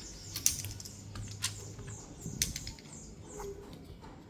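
Light clicks and taps of small phone parts and tools being handled on the bench, likely the camera modules being fitted back onto the motherboard, with the sharpest clicks about a second apart.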